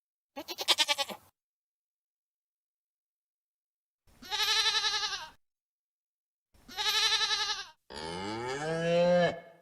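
Four separate bleating calls from livestock with silence between them: the first short and quavering, the next two about a second each, the last longer and lower, sliding in pitch.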